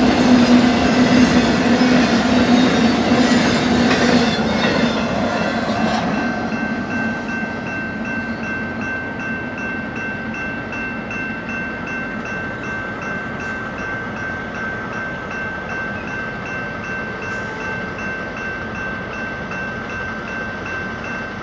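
The tail end of a BNSF intermodal train of spine cars loaded with truck trailers rolls past over the rails, fading out over the first five seconds or so. Then the grade-crossing warning bell is left ringing steadily on its own, still sounding after the train has cleared.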